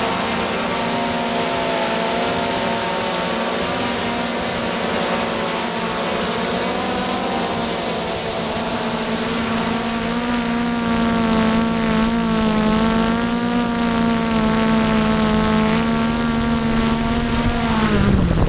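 Six brushless motors and propellers of a Y6 multicopter running in flight, a steady buzzing whine with a high tone above it, the pitch wavering as the throttle changes. Near the end the pitch drops as the motors slow down.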